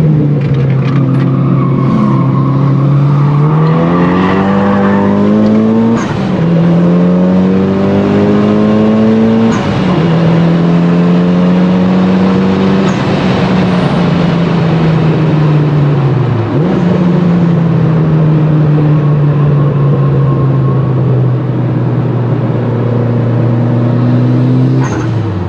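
Mitsubishi Lancer Evo 8's turbocharged four-cylinder engine pulling hard through two gears, with the revs climbing and then dropping sharply at two quick gear changes, and a thin turbo whistle rising with the first pull. It then eases off, with the revs sinking slowly and dipping twice more.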